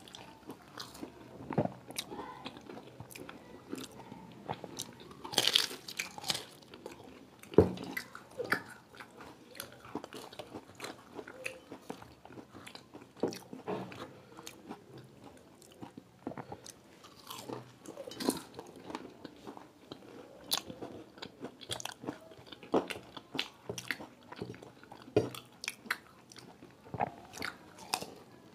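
Two people biting into and chewing fried samosas: crisp pastry crunching and wet chewing in irregular bites, with a few louder crunches, the loudest about seven and a half seconds in.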